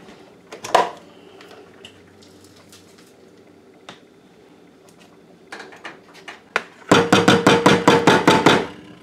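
Blade coffee grinder full of dehydrated tomato powder: one knock just under a second in, a few light clicks, then near the end a fast run of about a dozen rattling strokes, about seven a second, for under two seconds.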